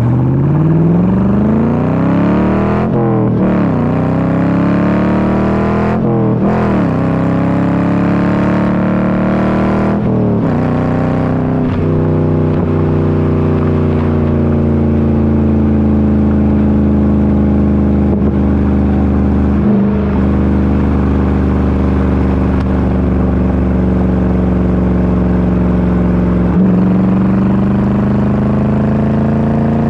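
2000 C5 Corvette's LS1 V8 through a MagnaFlow exhaust, heard at the tailpipes while driving. It accelerates through several gear changes, the pitch climbing and dropping back four times in the first twelve seconds. It then holds a steady cruise and begins to climb again near the end.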